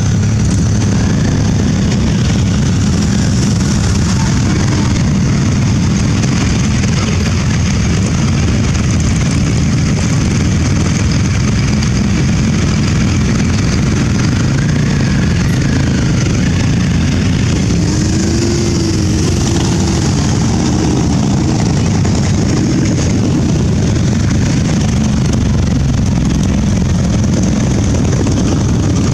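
A column of motorcycles riding slowly past one after another, many engines running at low revs in a loud, steady, low drone.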